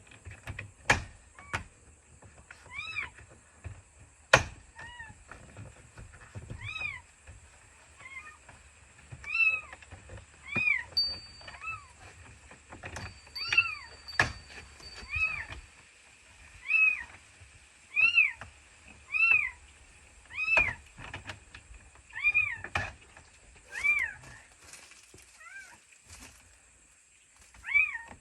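A cat, high-voiced like a kitten, meowing over and over: about twenty short rising-and-falling mews, roughly one a second. A few sharp clicks and knocks come in between.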